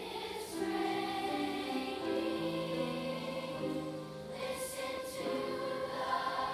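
A large children's choir singing slow, held notes that move from pitch to pitch, with brief hissing consonants about half a second in and again around four and a half seconds.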